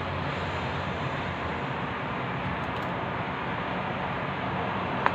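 Steady rushing background noise, with one sharp click of metal serving tongs near the end as roasted chicken thighs are lifted onto a plate.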